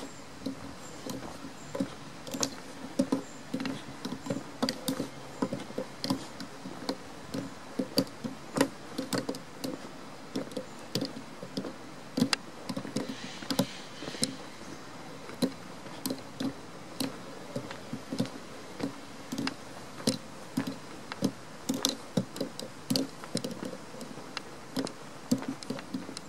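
Footsteps on a gravel path at a steady walking pace, about two steps a second.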